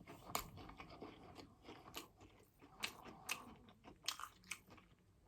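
A person chewing food close to the microphone, faint, with short wet mouth clicks scattered through.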